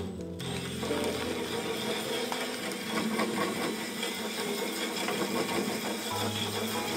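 Drill spinning a broom handle with stiff plastic brushes taped to its end inside a steel stern tube: a steady motor whir with the bristles scrubbing and rattling against the tube wall, scouring out rust and grime.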